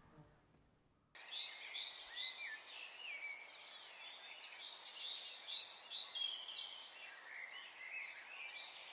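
Several songbirds singing and chirping at once, with quick runs of repeated high notes; the birdsong starts abruptly about a second in, after a moment of near silence.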